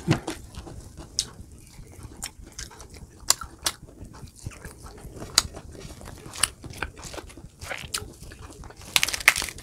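Close-up eating of roast chicken and its skin: irregular wet mouth clicks and smacks of chewing and biting, with a quick run of louder clicks near the end.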